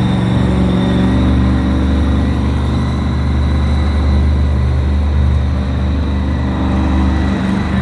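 Monster truck engine running loud and steady, with a brief dip in level near the end.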